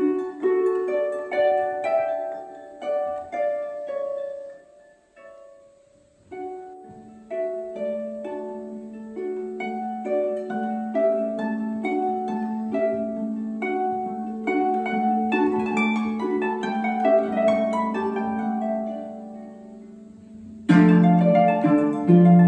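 Concert pedal harp playing a classical sonatina: plucked notes and broken chords ringing on. The playing thins out and nearly dies away about five seconds in, resumes as a repeated-note melody over a sustained low note, and a loud full chord comes in near the end.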